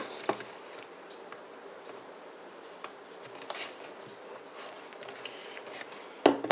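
A Leatherman Wingman multi-tool's box being handled and opened: scattered light taps and clicks, with a sharper knock just before the end.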